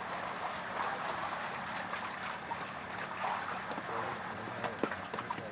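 Water sloshing and lapping, with a few sharp clicks or knocks near the end.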